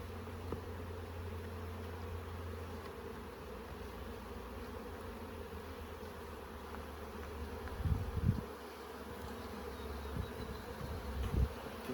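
Honeybee colony buzzing steadily around an opened hive, with two brief low bumps later on.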